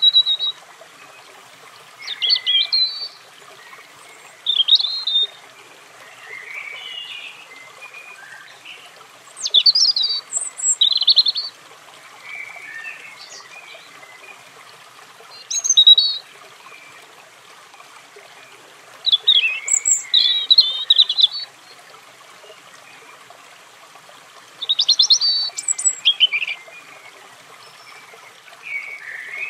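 European robin singing: short, high, rapidly warbling phrases every few seconds, with pauses between them and fainter phrases in the gaps, over a steady background hiss.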